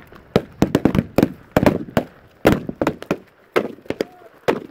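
Blank rifle fire in a battle reenactment: an irregular run of sharp cracks and thumps, several a second, mixed with the thuds and rattle of soldiers' boots and kit close by.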